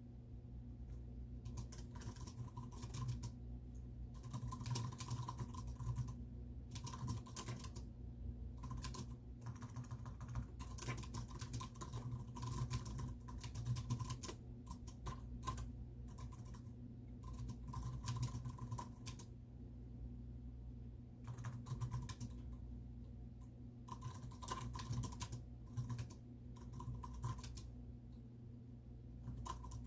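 Typing on a computer keyboard: quick runs of key clicks in bursts of a second or two, broken by short pauses, over a steady low room hum.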